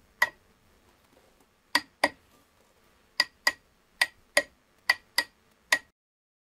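A hammer striking the seized raw water pump on a Perkins 4108 marine diesel to knock it loose from its adapter plate: about ten sharp, ringing metal knocks, several in quick pairs, with the sound cutting out abruptly near the end.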